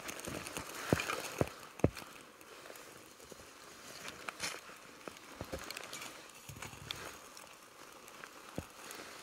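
Light knocks, clinks and rustles of metal camp cooking gear being handled and set up for melting snow, the sharpest knocks about one and two seconds in.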